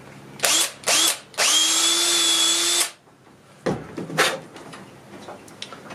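Power drill running in a wooden stick to open out the hole bored into its end: two short blips of the trigger, then a steady run with an even whine for about a second and a half. Two sharp knocks follow.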